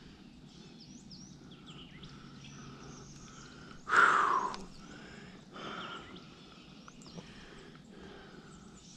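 A dog whining: one loud whine about four seconds in that slides down in pitch, then a shorter, fainter one a couple of seconds later, the dog restless and wanting to move.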